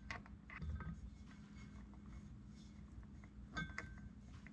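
A few faint, scattered metallic clicks as a brass thumb-screw drain plug with a greased O-ring is threaded by hand into the water-fuel separator drain port.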